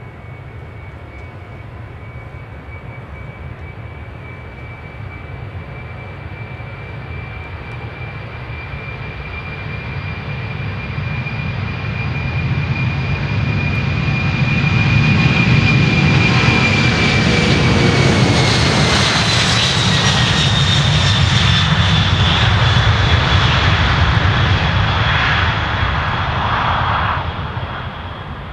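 Boeing 747-400's four General Electric CF6-80C2 turbofans at takeoff power on the takeoff roll: a steady whine over a low rumble that grows louder as the jet approaches. As it passes, about seventeen seconds in, the whine drops in pitch, and the sound falls off sharply near the end.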